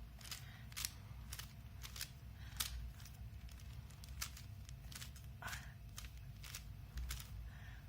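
Rubik's Cube layers being twisted by hand: a run of faint, irregular plastic clicks.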